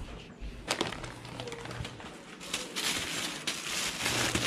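Clear plastic shopping bag full of goods rustling and crinkling as it is handled, loudest in the second half, with a sharp knock under a second in.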